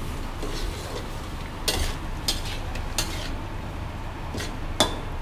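A spatula scraping and knocking against a wok as deep-fried sea bass is stir-fried in Thai curry paste. There are about five separate strokes, the sharpest near the end, over a steady low rumble.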